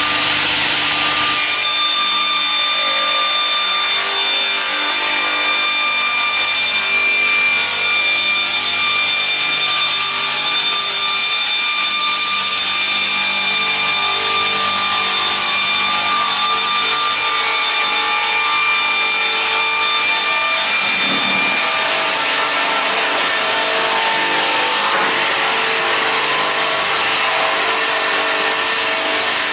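GP-630 slab-processing sawmill machine running and sawing wood slabs: a loud, steady saw noise with several high whining tones. About 21 seconds in, the highest whine drops out and the tone shifts.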